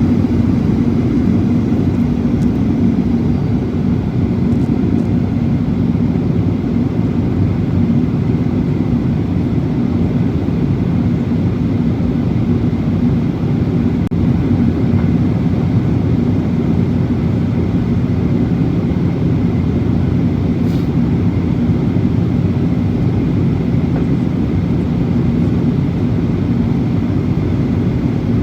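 Steady low rumble of a jet airliner's engines and airflow with a constant hum, at an even level, during its landing approach.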